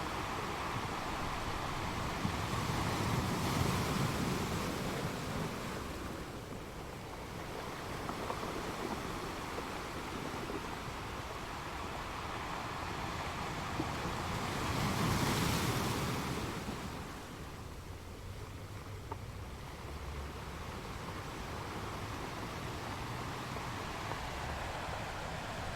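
Waves washing onto stones, a constant rush of water with two larger waves swelling and breaking, about three seconds in and again about fifteen seconds in.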